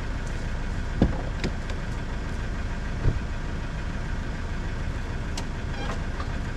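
Vehicle engine idling steadily, with a few short knocks and clicks over it.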